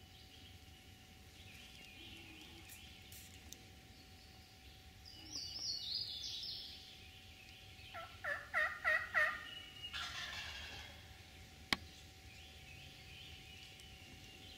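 Wild turkey gobbler gobbling once, about halfway through: a loud, quick rattle of notes lasting about a second and a half. Small songbirds chirp and trill around it, and a single sharp crack comes a few seconds later.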